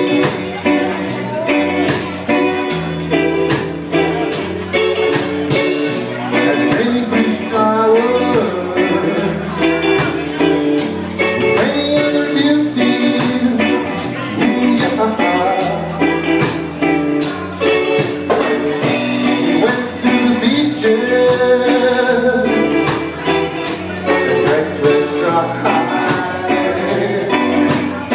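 A band playing live with a singer, guitar and bass over a steady beat, in a bluesy style.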